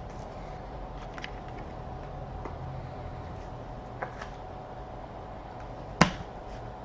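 Trading cards being handled on a table: faint light taps and slides, then one sharp click about six seconds in, over a steady low hum.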